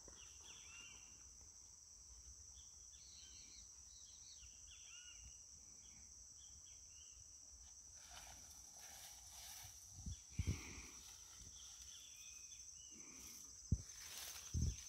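Steady high-pitched insect drone, like crickets, with scattered short chirps above it and a few dull knocks in the second half.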